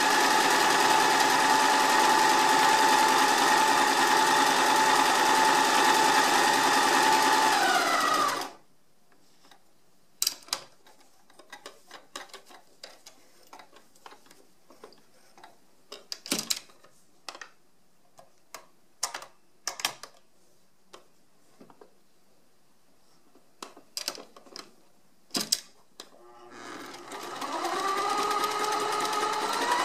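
Sears Kenmore 1050 sewing machine running steadily at speed while stitching, then slowing and stopping about eight seconds in. Scattered light clicks and rustles follow as the cloth is handled at the needle. Near the end the machine starts again, its pitch rising as it speeds up.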